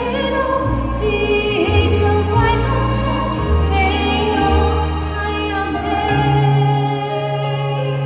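A woman singing live into a handheld microphone over a backing track, in long, held notes.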